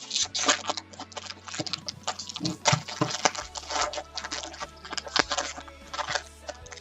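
Hands opening and handling a pack of trading cards: a quick, irregular run of sharp clicks and rustles as cards and packaging are handled.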